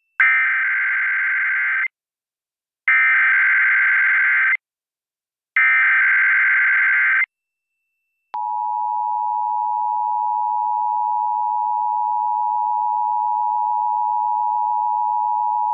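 Emergency Alert System SAME header: three identical screeching bursts of digital data, each under two seconds, a second apart, marking the start of a Required Monthly Test. About eight seconds in comes a click, and then the steady two-tone EAS attention signal (853 and 960 Hz) begins and holds.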